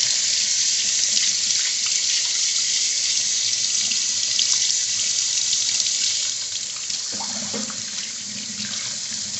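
Kitchen tap running into a sink while hands are washed, a steady hiss of water that quietens about six seconds in.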